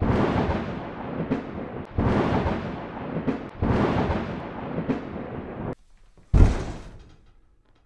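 Thunder sound effect: three rumbling thunderclaps, each fading, with sharp cracks between them. They cut off suddenly, and a single deeper, louder boom follows and dies away.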